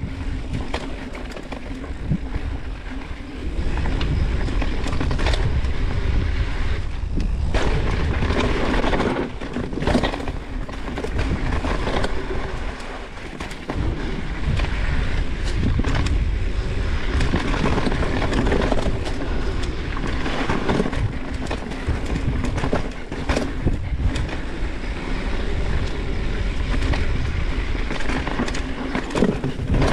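Mountain bike riding a dirt singletrack: tyres rolling over the dirt with frequent clatter and knocks over bumps, and a heavy rumble of wind over the microphone. The noise picks up about three to four seconds in.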